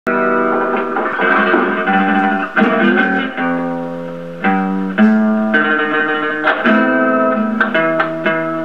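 Guitar music, a run of plucked notes.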